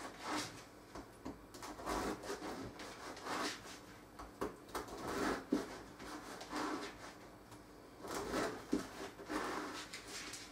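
Serrated bread knife sawing through a loaf of two-to-three-day-old bread on a cutting board, in repeated short strokes at an uneven pace of roughly one a second.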